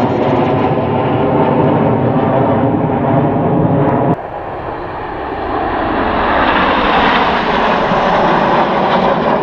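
Loud, steady jet noise of the Red Arrows' BAE Hawk formation flying over. About four seconds in the sound cuts abruptly to another jet formation passing, with a falling whine as it goes by.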